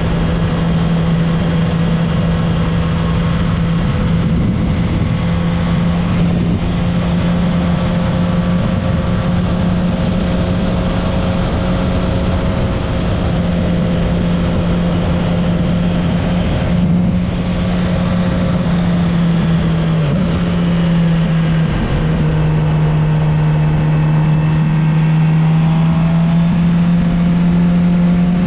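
Suzuki GSX-R750's inline-four engine running at a steady cruise, heard from on the bike over wind rush. The engine note dips briefly twice about two-thirds of the way through, then rises slowly near the end.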